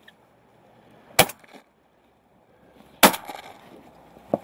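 Two shotgun shots about two seconds apart, the second the louder, each with a short ringing tail, followed by a smaller click near the end.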